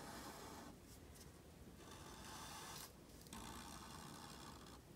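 Sharpie marker tip scratching across paper in a few long strokes, drawing the lines of a triangle, with short breaks between strokes.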